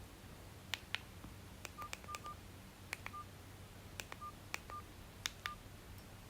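Mini flip phone keypad being pressed: a run of small plastic key clicks, most followed by a short single-pitched key beep, about seven beeps in all as the menus are stepped through.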